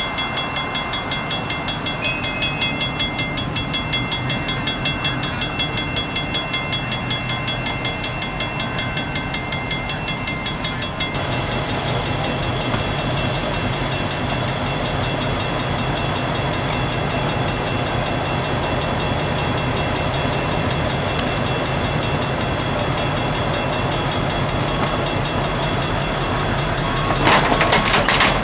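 Union Pacific diesel locomotives running at idle. For the first ten seconds or so a fast regular pulse, about two or three beats a second, rides on the engine sound, which then runs steadier. Near the end comes a short, loud burst of noise about a second long.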